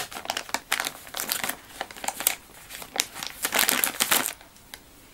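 Paper or plastic being handled and crinkled, in irregular rustling bursts that stop about four seconds in.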